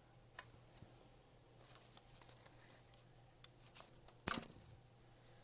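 Faint rustling and small clicks of cardstock and ribbon being handled and pressed down with glue dots, with one sharp snap a little past four seconds in.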